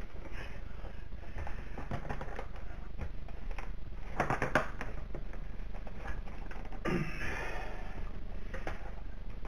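Hands pushing and tapping on a PlayStation 4's plastic casing while trying to slide its glossy top panel off: scattered light plastic clicks and knocks, with a quick cluster of clicks about four seconds in and a short rush of noise about seven seconds in.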